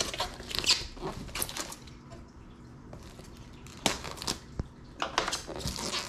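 Seal tape on a cardboard product box being picked at and cut open with a small pointed tool: clusters of short scratches and tearing sounds, the busiest in the first second and a half, then a few sharp scrapes about four and five seconds in.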